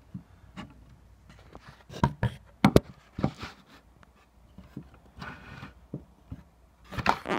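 Handling noises from a hockey stick and small parts being moved about: a few knocks and clicks, the sharpest pair about two and a half seconds in and another cluster near the end, with a soft rustle around five seconds.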